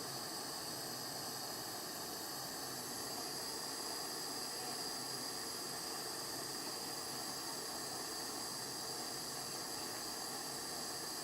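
Steady hiss of a jeweller's soldering torch flame, held on a sterling silver ring to heat the joint before the solder flows.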